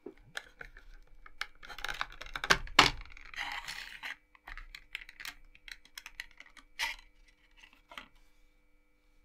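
Hands handling a CPU and motherboard parts on a desk: irregular small clicks, taps and rustling scrapes of plastic and metal as the processor is lined up and set into its AM4 socket. The handling is busiest in the first half and thins out near the end, over a faint steady hum.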